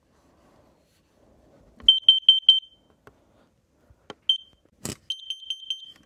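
Kidde carbon monoxide alarm sounding its CO alarm signal with high electronic beeps. A quick run of about four beeps comes about two seconds in and a single beep follows a little after four seconds. A sharp click comes just before five seconds, then another fast run of beeps near the end.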